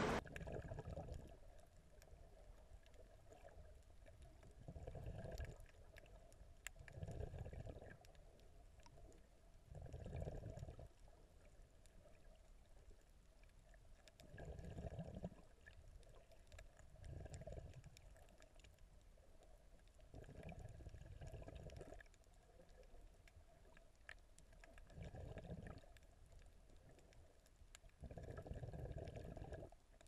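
Muffled underwater sound of a snorkeler breathing through a snorkel: a slow, uneven rhythm of breaths about every two to four seconds, each about a second long.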